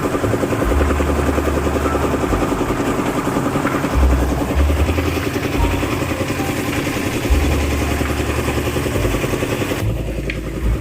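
Excavator's diesel engine running steadily at the dig, with irregular low rumbles underneath; the sound changes abruptly near the end.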